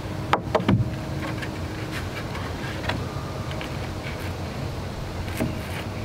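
A quick cluster of sharp knocks about half a second in, a couple of lighter ticks midway and another knock near the end, as red pine 1x3 balusters are handled and set against a wooden porch railing, over a steady low hum.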